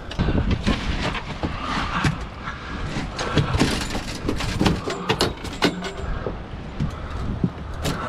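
Repeated knocks, thumps and clatters on a fiberglass boat deck as a large red drum is shaken out of a landing net and unhooked, with a continuous low rumble underneath.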